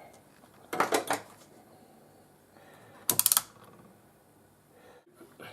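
Two brief bursts of small clicks and clatter, about a second in and again about three seconds in, from handling the multimeter and test gear on the bench.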